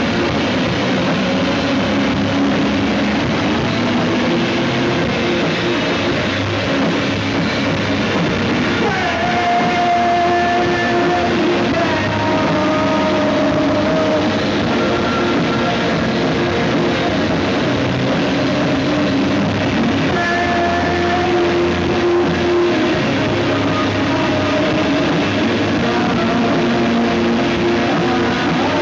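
A live rock band playing: drum kit, electric guitar and a singer at the microphone, with held sung or lead notes coming in about nine seconds in. It is a VHS-tape recording, which the uploader admits sounds awful.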